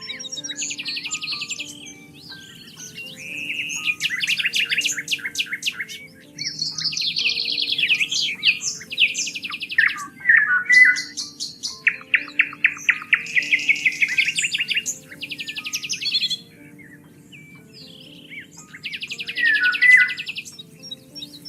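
Several songbirds singing in overlapping phrases of chirps and rapid, evenly pulsed trills, with a short lull about three quarters through, over a soft background of sustained low musical notes.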